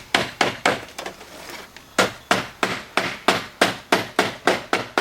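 Hammer striking a nail through copper flashing into the roof, knocking a hole in the metal and kinking it down. The blows come unevenly at first, then about three a second.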